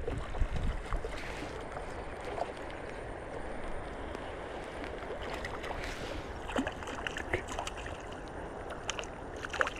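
Steady rush of flowing river water, with scattered light clicks and a few short high chirps over it, most of them in the second half.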